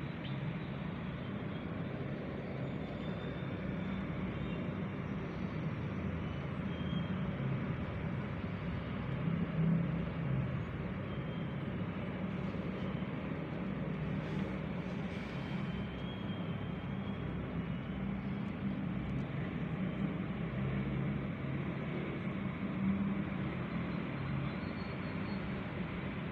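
Steady low rumble of road traffic, a continuous city street ambience.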